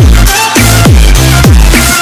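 Background electronic music with a heavy beat: deep bass notes that slide down in pitch, repeating in quick succession, over busy high percussion.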